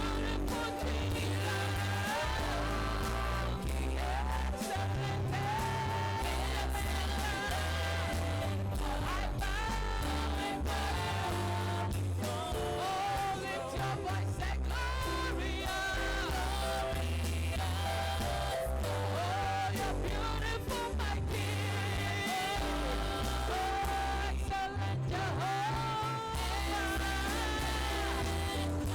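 Worship music with a singing voice over a band with a steady bass line and held chords.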